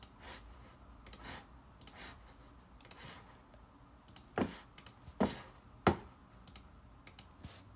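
Computer mouse clicking: three sharp clicks a little under a second apart about halfway through, with a few fainter ones earlier.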